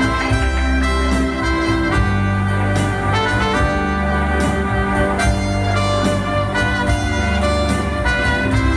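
Small jazz band playing live: two trumpets and a saxophone carry held melody notes over keyboard, with a low bass line that changes note every couple of seconds and regular cymbal strokes.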